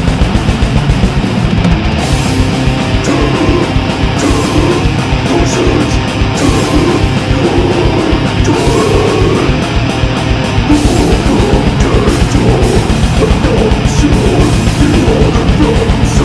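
Death metal/grindcore music: heavily distorted electric guitars over fast drumming, with rapid, evenly spaced kick-drum hits.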